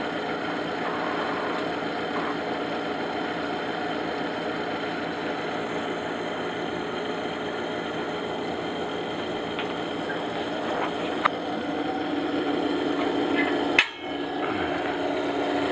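Pellet stove exhaust blower running with a steady, many-toned whir from its worn top and bottom bearings, the sign that the bearings are shot. A sharp click about eleven seconds in, and a brief snap with a momentary drop in the sound near the end.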